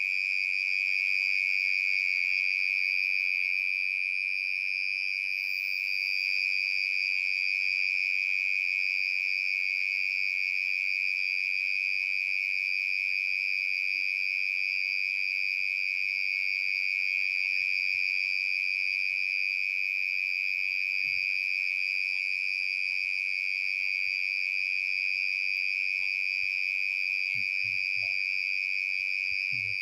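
Cricket singing one steady, unbroken high-pitched trill.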